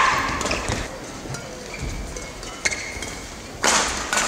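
Badminton singles rally: sharp cracks of rackets striking the shuttlecock roughly once a second, with short high squeaks of court shoes; the loudest hit comes near the end.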